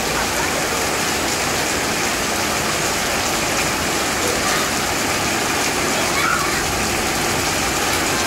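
Heavy rain falling steadily on a concrete patio and pooled water, an even, unbroken hiss of downpour.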